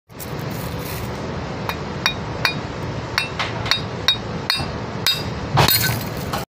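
A hammer strikes the porcelain body of an 11 kV HRC fuse cartridge about ten times, each blow a sharp clink with a short ring. The loudest crash comes near the end as the porcelain cracks apart, all over steady background noise.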